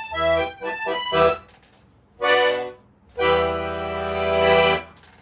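Solo accordion playing the final bars of a fast piece: a quick run of short notes, a short full chord, then a long held final chord that swells and cuts off cleanly.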